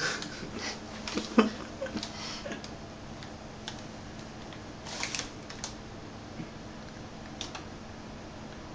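Scattered clicks and short rustles of packaging being handled while the box is opened, the sharpest click about a second and a half in and another small cluster about five seconds in, over a faint steady hum.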